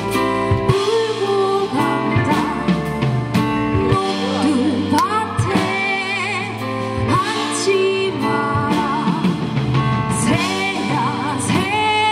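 A woman singing with a live amplified band of guitars, drum kit and keyboard. Her held notes waver with vibrato.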